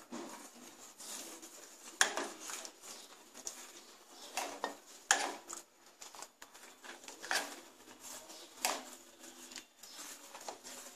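A long steel spoon stirring milk in a stainless-steel pot, scraping and clinking against the pot's sides in irregular knocks, with custard mix being stirred in.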